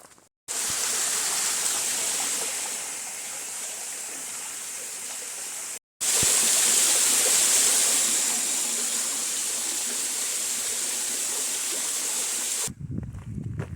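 Steady rushing water, heard in two shots joined by a brief cut to silence about six seconds in; the second shot is slightly louder.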